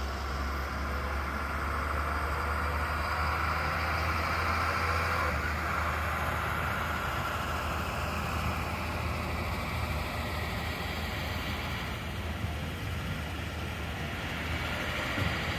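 A yellow self-propelled track maintenance vehicle's diesel engine runs with a steady low rumble as it passes, with the wheels of its flat wagons rolling on the rails. It is loudest about four seconds in and eases off toward the end.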